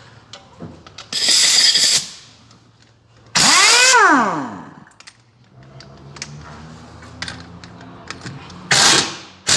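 Power tool, most likely an impact wrench, run in three short bursts on a bolt of the brake and hub assembly. The second burst ends in a falling whine as the tool spins down. A faint steady hum follows.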